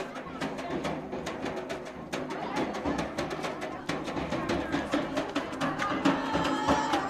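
Dance music with a quick, steady drum beat.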